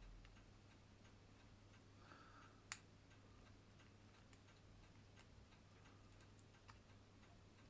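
Elgin grade 144 pocket watch movement running, its ticking faint and rapid, with one sharper click about two and a half seconds in.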